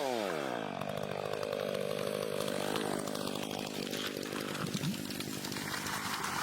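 Chainsaw engine running hard: its pitch drops steeply in the first second, then it holds steady at a lower speed with a rough, rasping buzz.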